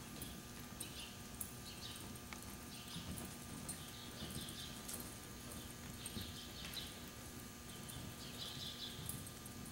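Faint, irregular hoofbeats of a horse loping circles on soft arena dirt, over a steady low hum.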